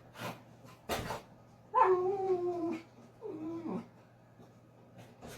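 Miniature schnauzer whining: two drawn-out, slightly falling whines about two and three seconds in, after two short sharp sounds near the start.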